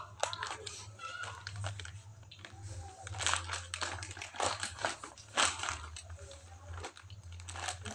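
Plastic crinkling and rustling, irregular and repeated, from a baby-wipes pack and disposable diaper being handled during a diaper change, over a low steady hum.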